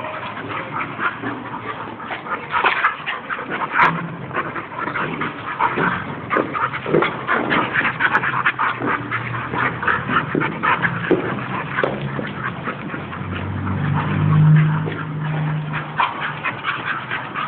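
Two Bull Terriers play-wrestling, with dense, rapid scuffling and mouthing noises throughout. Near the end comes a low, steady play growl.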